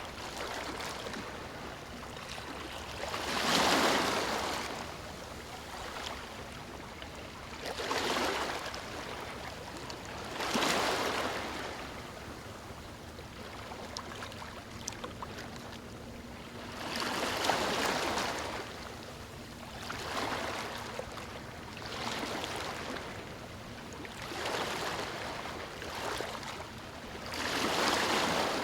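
Ocean waves breaking on a beach, each wave swelling and fading every few seconds, with the wash of water running between them; about seven waves, the loudest about four seconds in.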